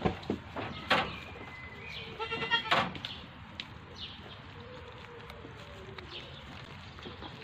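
A single wavering bleat from a farm animal, about two seconds in, over sharp clicks and rustles from kittens crunching dry food in a bowl on straw.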